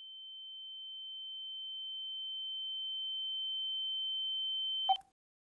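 A high, steady electronic tone with a fainter lower tone beneath it slowly swells in loudness, then cuts off abruptly with a click about five seconds in.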